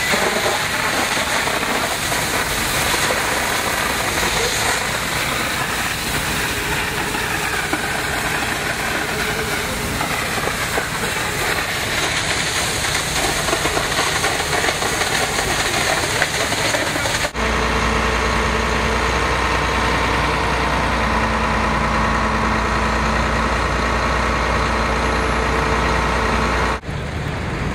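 Fire-ground noise: a steady rushing hiss mixed with engine running. After a cut about two-thirds of the way through, an aerial ladder fire truck's engine runs steadily close by with a deep even hum.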